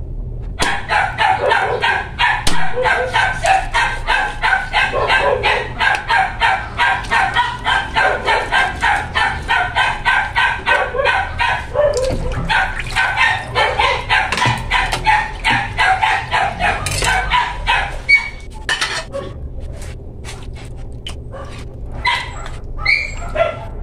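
A dog barking in a fast, steady run of short yaps, about four a second, which stops about eighteen seconds in; a few scattered knocks follow near the end.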